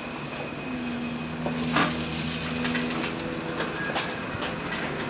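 Wok cooking on a restaurant stove: a steady low hum with a few sharp metal clinks and scrapes as the pan is handled.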